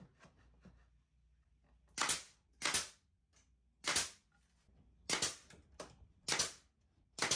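Rubber mallet knocking a cedar frame on a plywood workbench: about seven sharp knocks, some in quick pairs, starting about two seconds in.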